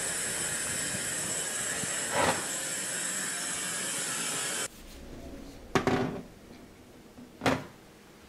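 Steady hiss of television static, which cuts off suddenly about halfway through, followed by two sharp knocks about two seconds apart.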